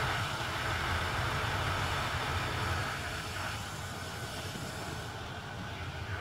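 SM42 diesel shunting locomotive running as it moves along the track during shunting, a steady low engine rumble that grows a little quieter about halfway through.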